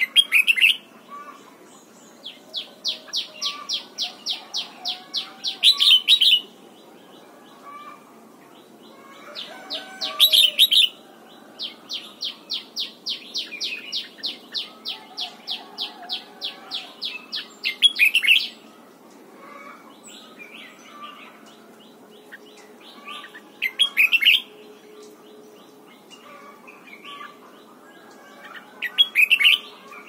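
Red-whiskered bulbul singing short, loud, whistled phrases about every five seconds. Between phrases come two long runs of rapid repeated notes, about three to four a second.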